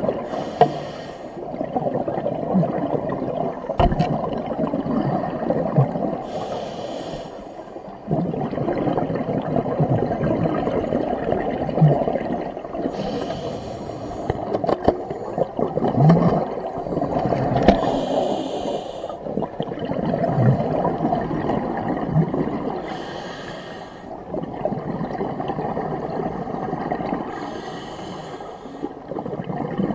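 Scuba diver breathing through a regulator, heard underwater. A short hiss of the regulator on each inhale comes about every five seconds, with the rumble and gurgle of exhaled bubbles between.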